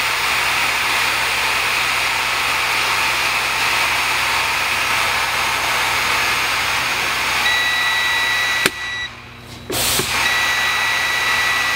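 Compressed air hissing steadily out of a heavy truck's air brake system as the pressure is bled down. A little past halfway the low-air-pressure warning buzzer starts as a steady high tone, the sign that tank pressure has fallen to about 65–70 PSI. The hiss breaks off for about a second and then resumes under the buzzer.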